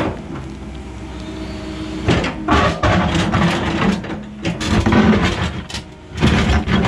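Excavator engine running under load as its bucket digs into rocky ground, with loud scraping and clattering from the bucket coming and going several times.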